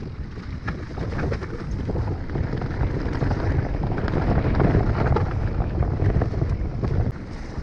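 Wind buffeting a GoPro's microphone as a mountain bike rolls fast downhill over a stony dirt trail, with a dense patter of knocks and rattles from the bike over stones and roots. It grows louder toward the middle and eases near the end.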